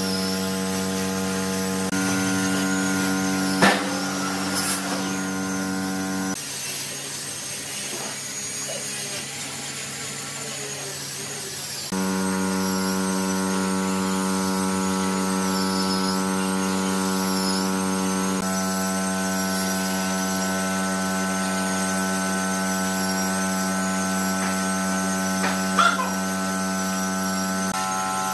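Background music of held, sustained chords that change every few seconds, with a sharp click twice.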